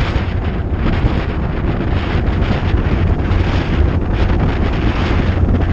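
Heavy, steady wind rushing over the microphone of a bicycle handlebar-mounted action camera as the bike descends a hill at speed.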